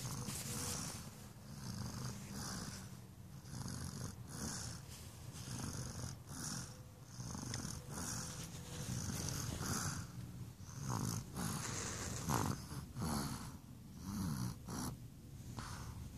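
Snoring: a steady run of noisy breaths, roughly one a second, from a sleeper worn out after swimming and play.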